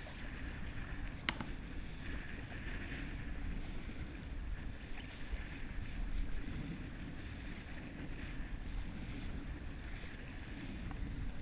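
Double-bladed kayak paddle stroking through choppy lake water, alternating sides, each stroke a short splash, with wind rumbling on the microphone. A single sharp click sounds about a second and a half in.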